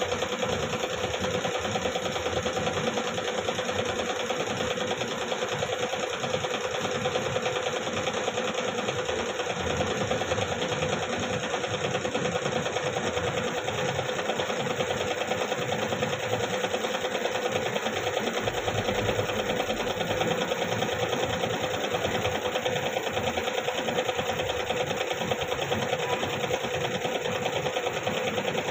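A machine running steadily with a rapid, even clatter.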